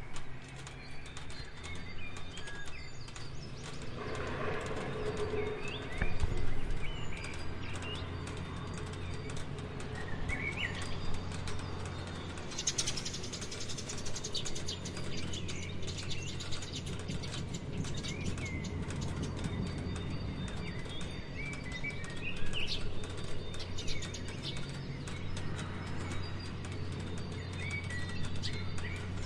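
Steady rain falling, with birds chirping now and then over it and a steady low hum underneath.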